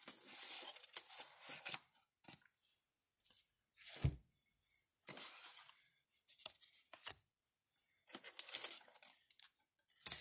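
Packaging of a baseball card repack being torn open and the cards inside handled, in short rustling bursts, with one dull thump about four seconds in.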